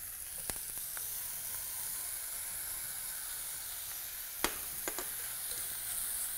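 Brown rice and red pepper sizzling in hot oil in a pot: a steady high hiss, broken by a few sharp clicks of the spatula against the pot, the loudest about four and a half seconds in.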